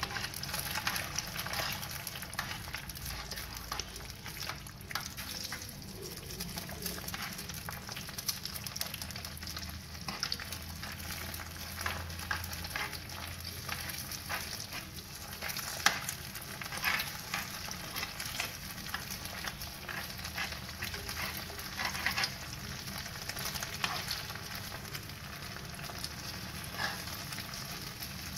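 Two beaten eggs sizzling steadily in hot oil in a metal frying pan. A metal spoon scrapes and taps against the pan again and again as the eggs are broken up and stirred into scrambled egg.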